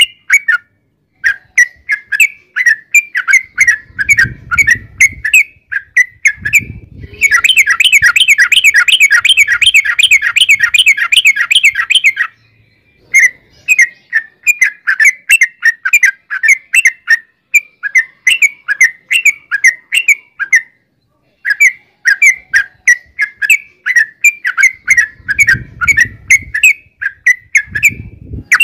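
Yellow-vented bulbul singing vigorously: runs of quick repeated chirping notes with short pauses, and a long, fast rolling trill from about 7 to 12 seconds in.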